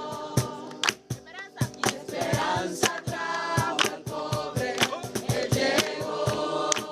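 A group of voices singing together, with frequent sharp strikes keeping a beat.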